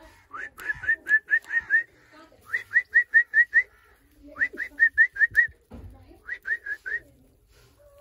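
Short rising whistled chirps repeated about five times a second, in four quick runs of four to seven notes with brief pauses between.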